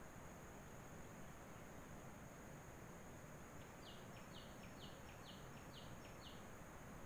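Near silence: a low hiss with a faint steady high whine. About halfway through comes a run of six short high chirps, a little over two a second.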